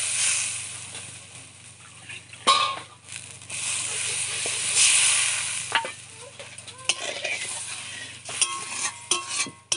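Mustard-paste masala sizzling and hissing in a hot steel wok as water is poured in, flaring up loudly about two and a half seconds in and again around five seconds. A metal spatula stirs and scrapes against the wok, with a run of clinks in the second half.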